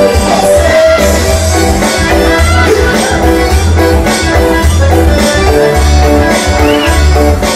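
Loud dance music with a steady, repeating bass beat.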